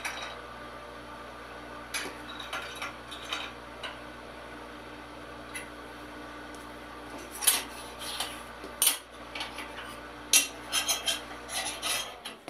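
Light metallic clinks and taps in scattered clusters, from tools and hands working an aluminum jointer bed extension as it is leveled to the machine's table with set screws. A steady low hum runs underneath.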